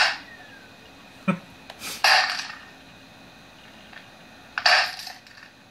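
A heavy Maglite flashlight banging hard on a laptop, about four blows, heard as a video played back through a laptop's small speakers.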